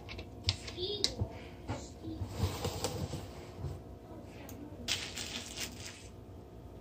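A few light clicks and taps of a plastic lemon juice bottle being handled and set down on a kitchen countertop, with faint handling rustle.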